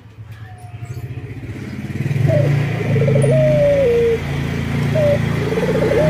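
Male collared dove cooing: a rolling, rapidly pulsed trill that runs into a long coo stepping down in pitch about three seconds in, then a short note and the start of another rolling trill near the end. A low droning rumble runs underneath.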